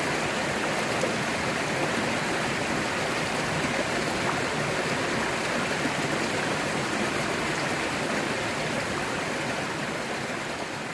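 River water rushing steadily over stones, an even flowing noise that eases off slightly near the end.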